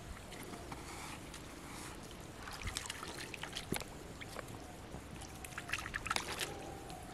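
Pond water splashing and trickling in two short bursts, about two and a half seconds in and again near six seconds.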